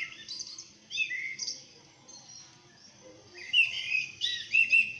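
Small birds chirping and twittering in short quick phrases: a cluster of chirps near the start, then a louder run of chirps from about three and a half seconds in. The birdsong is from a nature-sound recording played on a phone speaker and re-recorded on another phone, so it is thin with no top end.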